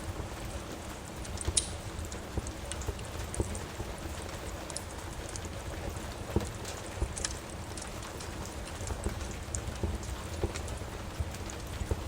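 Steady rain with a wood fire crackling, its sharp pops scattered every second or two over the even hiss.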